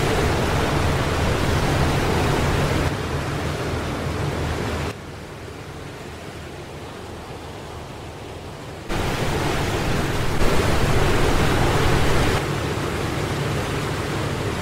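Steady rushing wind and sea noise of a ship under way, with a low rumble beneath it over the first few seconds. The noise drops sharply about five seconds in and comes back louder about four seconds later.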